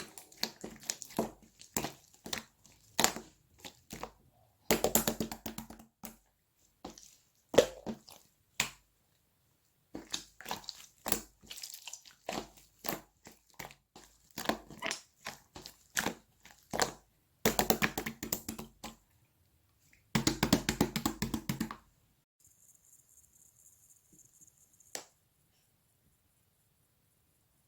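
Slime being pressed, stretched and squished by hand, giving runs of wet popping and crackling clicks in bursts, with short pauses between them. Near the end the handling stops, apart from one last click.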